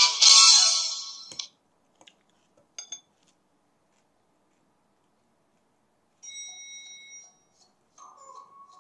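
Background music that cuts off about a second and a half in, followed by a few faint clicks. About six seconds in, an electronic beep made of several steady high tones sounds for about a second.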